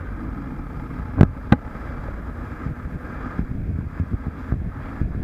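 Wind rushing over the camera microphone on a moving motorcycle, with engine and road noise underneath. Two sharp knocks a little over a second in are the loudest sounds.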